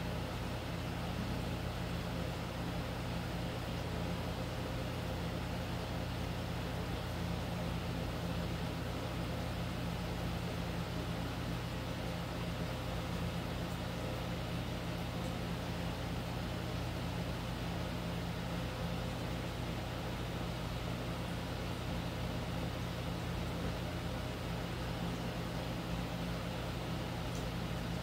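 A steady, low machine-like hum with a constant hiss over it, unchanging throughout.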